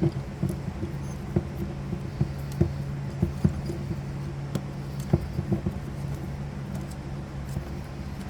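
Irregular light clicks and taps of small metal parts, screws and tools being handled while a pinball score reel unit is put back together, over a steady low hum.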